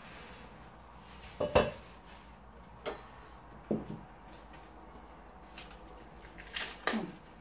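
A plate knocks down onto the table about one and a half seconds in as dishes are moved, followed by a few quieter clinks and knocks of plates being handled.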